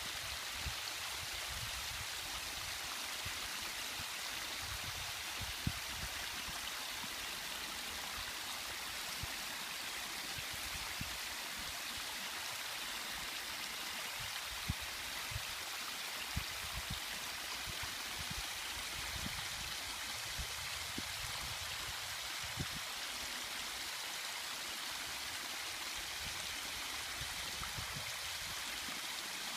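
Small waterfall running: water splashing and rushing in a steady hiss, with a few brief low knocks scattered through it.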